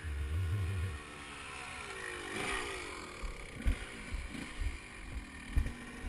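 Kawasaki 250 dirt bike engine running on a trail, its pitch rising and falling as the throttle is worked. A low wind rumble fills the first second, and a few sharp thumps come in the second half as the bike goes over bumps.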